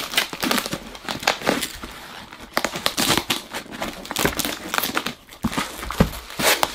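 A knife slitting the packing tape on a cardboard box, then the box flaps being pulled open and handled: a busy run of sharp crackles, tearing and scraping of tape and cardboard.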